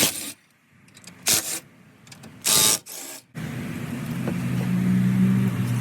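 Three sharp snaps or pops of plastic clips being pried out, followed from about halfway through by a steady low machine hum.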